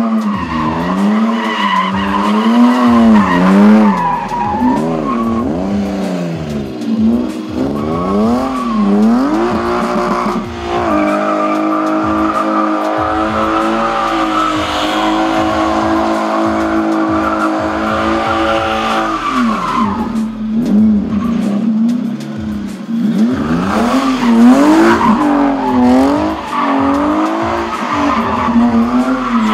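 A drifting car's engine revving hard, its pitch swinging up and down in quick repeated swells, with tyres skidding and squealing on asphalt. About ten seconds in the revs hold steady for roughly eight seconds while the wheels keep spinning, then the quick up-and-down revving returns.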